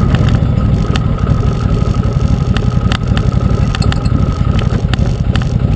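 Arctic Cat Wildcat UTV's V-twin engine running steadily as a low rumble, with irregular sharp clicks and rattles over it.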